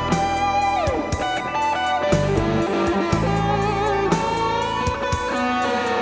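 Instrumental music from a Korg M1 synthesizer: a sustained electric-guitar-like lead line that slides down in pitch about a second in, over held bass notes and a steady drum-machine beat.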